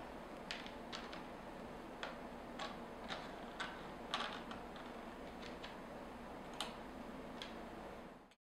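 Faint light clicks at irregular intervals, roughly one every half second to a second, as small pieces of old metal jewelry and pearl strands are set down and shifted on a tabletop.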